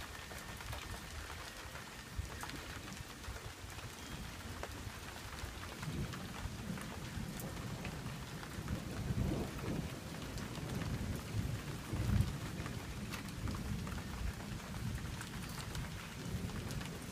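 Thunderstorm: rain falling steadily with scattered drops ticking, and thunder rumbling low, swelling from about six seconds in and loudest about nine and twelve seconds in.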